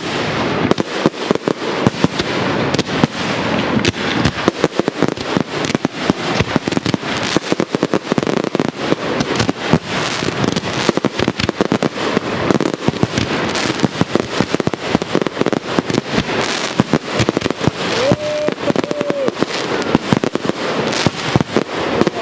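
Aerial firework shells bursting in a rapid, unbroken barrage, many sharp bangs a second over continuous crackling.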